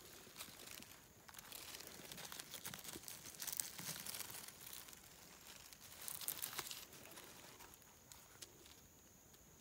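Faint rustling and crackling of dry leaf litter and pine needles being disturbed by hand, loudest about three and a half seconds in and again around six seconds.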